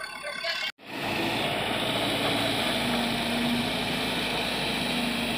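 Bobcat backhoe loader's diesel engine running steadily, after a brief dropout in the sound under a second in.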